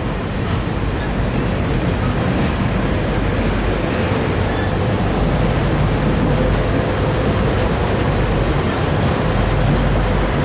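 Intermodal freight train of truck trailers on spine cars rolling past close by: a loud, steady rumble of wheels on rail with rattling cars, and a faint thin tone that comes in about midway and fades near the end.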